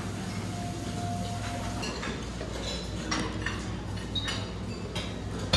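Dining-room clatter at a buffet: scattered clinks of dishes and cutlery over a steady low hum, the clinks coming more often from about two seconds in.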